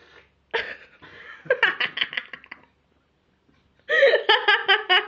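A person laughing in quick, high-pitched bursts: a short fit about a second and a half in, then a louder run of laughter near the end.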